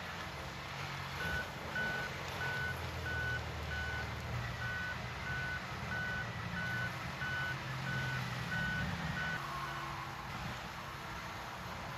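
Backup alarm of a heavy diesel machine beeping steadily, about three beeps a second, over the low rumble of its engine; the beeping stops about nine seconds in.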